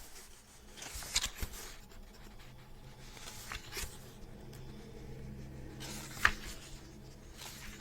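Pages of a book being turned and handled: soft paper rustles and taps, with one sharper tap about six seconds in.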